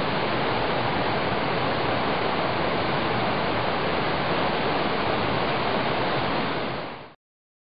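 Rapid Creek rushing over and around an ice dam that has formed behind a fallen tree: a steady rush of flowing water that fades out quickly near the end.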